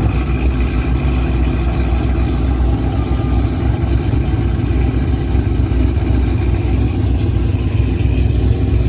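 Performance car engine idling with a deep, steady rumble.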